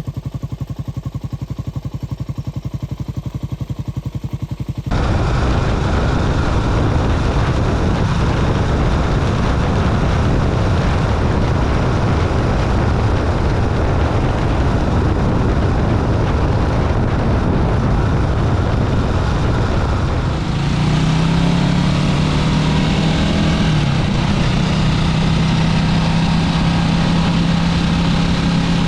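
Honda CB400SS single-cylinder engine running with an even low thumping for the first few seconds. It then cuts suddenly to loud, dense riding noise of the bike under way. About two-thirds of the way through, the engine's note rises briefly and then holds steady above the rush.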